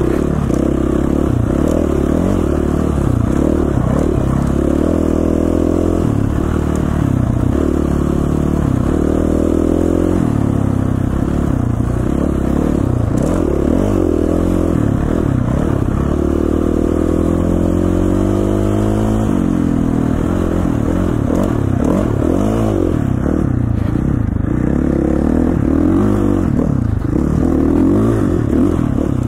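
KTM 450 dirt bike's single-cylinder four-stroke engine being ridden, its note climbing and falling with the throttle. It makes a long rising pull about two-thirds of the way through, then drops suddenly.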